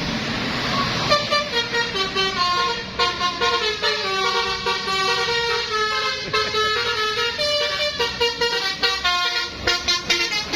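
Bus telolet horn, a multi-tone musical horn, playing a quick tune of short notes that jump between pitches. It starts about a second in and runs on until just before the end, over road noise.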